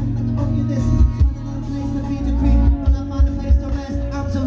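Live band music played loud through the festival sound system: a heavy bass line, drum hits and a singer's voice.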